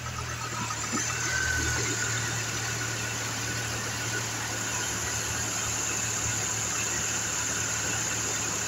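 2005 Chevrolet Colorado engine idling steadily in the open engine bay, a low even hum with a faint high whine over it.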